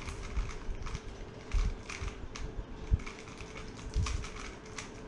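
A 3x3 speed cube turned quickly by hand through an algorithm, its plastic layers clicking in fast, uneven runs of turns.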